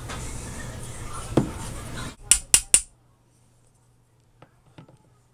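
Small brass hammer tapping a filter screen down into the top of a Bosch EV1 fuel injector: three quick, sharp taps a little over two seconds in, then a couple of faint ticks. Before the taps, a steady background hiss and low hum that cuts off suddenly.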